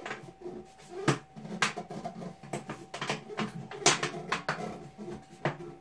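Irregular sharp clicks and knocks, about eight of them, from hands working galvanized sheet-metal duct pieces on a workbench, over a steady faint hum.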